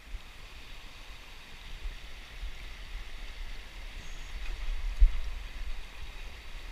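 River water rushing steadily, with an uneven low rumble underneath that is strongest about five seconds in.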